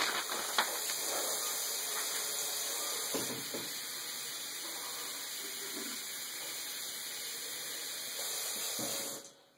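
Water running steadily from a tap into a bottle, filling it with the rest of the water for a homemade electrolyte drink; the flow is shut off about nine seconds in.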